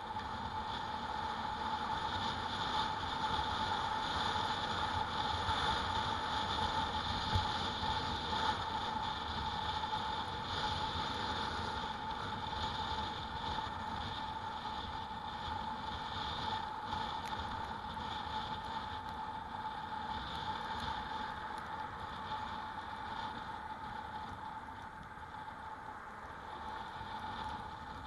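Electric bike riding at a steady pace: a constant whine held at one pitch over rushing wind and road noise.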